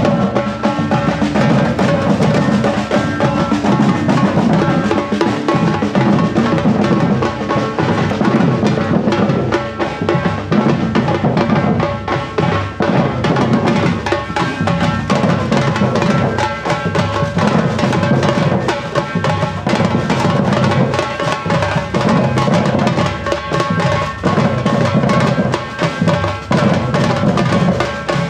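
Afro-Brazilian street percussion band drumming a loud, dense, unbroken rhythm, with low drums under sharper, higher strikes.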